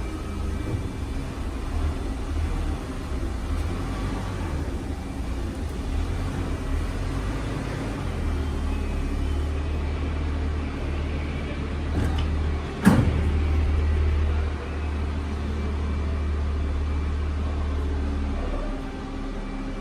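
Amada RG-100L hydraulic up-acting press brake running through its stroke. Its hydraulic pump and motor give a steady low hum that grows heavier about eight seconds in and eases off near the end, with a sharp clank about thirteen seconds in.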